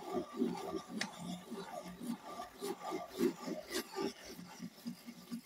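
Deli NU Sign hand-cranked rotary pencil sharpener being cranked, its cutter shaving a wooden pencil with a rhythmic grinding rasp, about four strokes a second. The strokes grow fainter over the last second or so.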